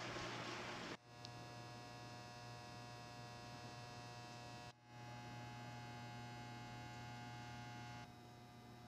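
Faint steady electrical hum made of several held tones. It cuts out briefly and changes about a second in and again near five seconds, then drops a little lower just after eight seconds.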